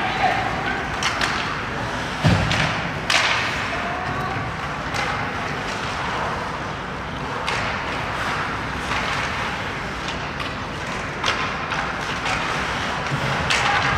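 Ice hockey in play in an indoor rink: a steady wash of skates on the ice, broken by sharp clacks of sticks and puck. A heavy thud comes a little over two seconds in.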